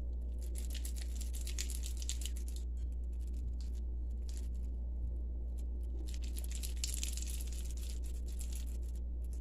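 Hands rolling a soft cream cheese mixture with chopped cranberries and nuts into small balls, giving soft squishing and rustling handling noise in several stretches, over a steady low hum.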